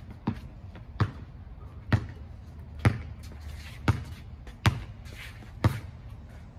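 Basketball dribbled on a hard court: sharp, single bounces at a steady pace of about one a second.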